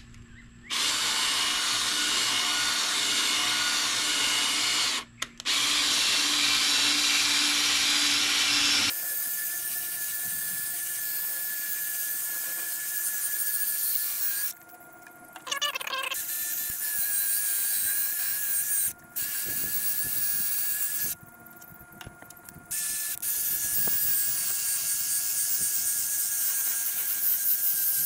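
Cordless drill spinning a foam polishing ball against a plastic headlight lens, running in long stretches with brief stops: once about five seconds in, then a few more times in the second half.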